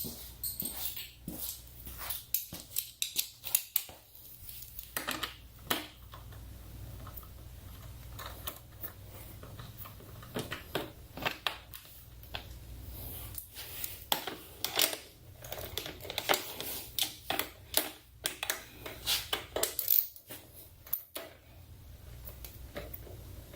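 Socket ratchet with a 10 mm socket and extension clicking in short irregular runs while bolts are backed out, with scattered small metal clicks and knocks.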